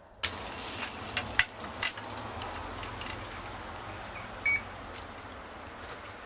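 Jingling and clinking of small metal objects for about the first three seconds, then a single short high beep, over steady background noise.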